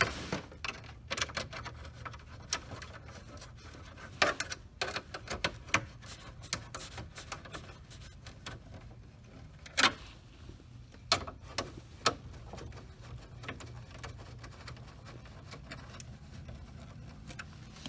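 Scattered clicks, taps and light rubbing at irregular moments, from hand work fastening screws with a nut driver under a car's dash trim panel. A steady low hum runs underneath.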